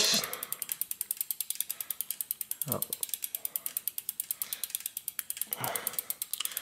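Bicycle rear wheel coasting on its freewheel, the pawls clicking in a rapid, even ratchet of roughly a dozen clicks a second.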